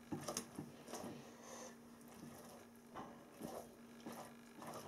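Faint soft squelches and scrapes of a silicone spatula pressing cooked, chopped spinach into a rubber ice cube mould, several light strokes spread through, over a steady low hum.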